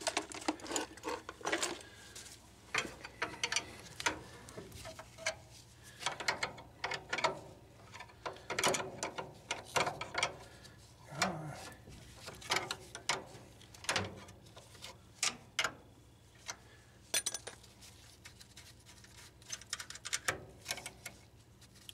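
Wrench working on the fittings of a Beckett oil burner: irregular metallic clicks and taps with short pauses between them.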